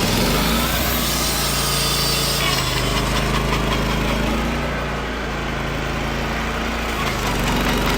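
Wood-Mizer LT15WIDE portable sawmill running steadily, its band blade cutting through a cedar log: a low motor drone under a noisy sawing hiss.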